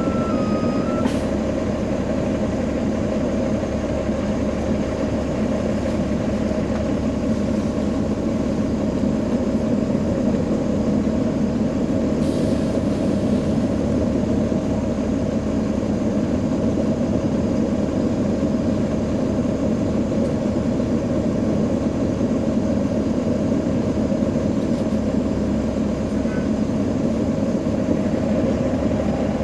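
Steady drone heard on board a 2009 NABI 40-SFW transit bus as its Caterpillar C13 ACERT diesel runs. A high two-pitch electronic beeping stops about a second in.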